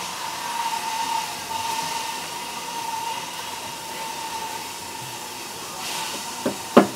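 Steady background hiss with a faint, thin, steady whine, broken near the end by two sharp knocks, the second louder.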